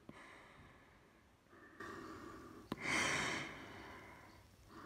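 A person breathing through a Polish MC-1 rubber gas mask: several hissing breaths through the mask, the loudest about three seconds in, with a sharp click just before it.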